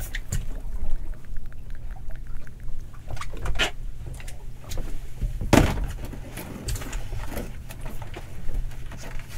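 Knocks and clatter of handling on a small fishing boat, with a loud sharp knock about five and a half seconds in, and a little water sloshing, over the steady low hum of the boat's idling engine.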